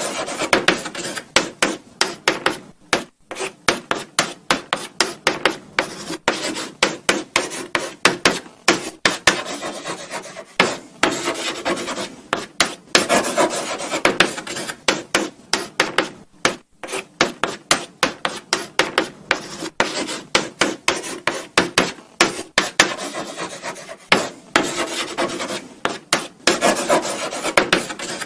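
Chalk writing on a blackboard: rapid short scratching strokes, several a second, with brief pauses between words and a few longer stretches of continuous rubbing.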